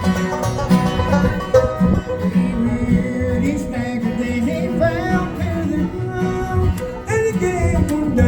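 Bluegrass music played on acoustic instruments, with banjo and guitar picking.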